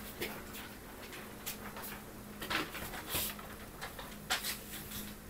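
Pen writing on a book page: a string of short, scratchy strokes of the pen tip across the paper, uneven in rhythm, over a faint steady hum.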